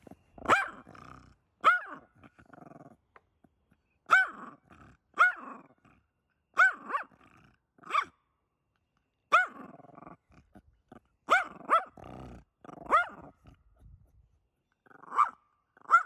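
An animal calling repeatedly: about a dozen short, loud calls, each sliding down in pitch, coming singly or in pairs a second or so apart.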